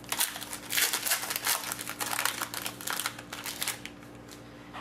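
A hockey card pack's wrapper being torn open and crinkled, a dense run of crackling rustles that fades out near the end.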